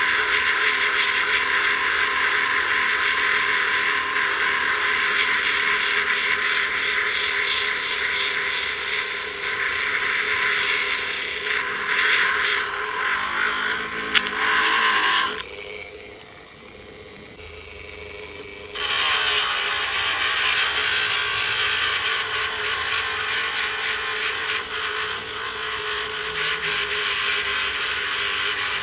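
Dremel rotary tool with a 120-grit sanding band grinding down the outer layer of an abalone shell: a steady motor whine under a loud gritty rasping. About halfway through it goes much quieter for about three seconds, then the sanding resumes.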